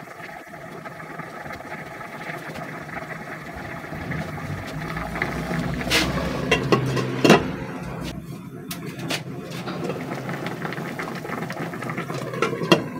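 A glass pot lid being set on a simmering cooking pot: a few sharp clinks about six to seven seconds in, and a couple more near the end. Underneath runs a steady rumble from the pot boiling on the gas burner.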